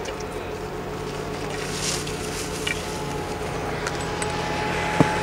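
Steady outdoor rushing noise with a faint low hum, and one sharp knock about five seconds in.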